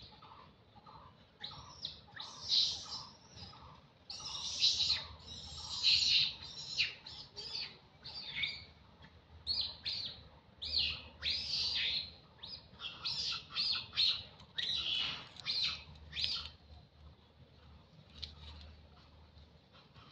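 Birds chirping: loud, rapid, high chirps in quick clusters for most of the stretch, dying away near the end. In the first few seconds a steady low note repeats about two and a half times a second behind them.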